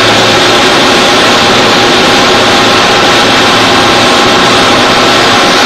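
Gray 550F CNC floor-type horizontal boring mill running: a loud, steady mechanical din with a few constant hum tones in it.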